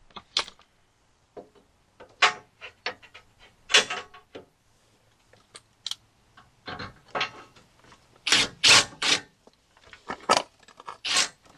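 Steel skid-plate bolts and brackets clinking and rattling as they are handled and fitted, in an irregular run of sharp metallic clicks and clatters.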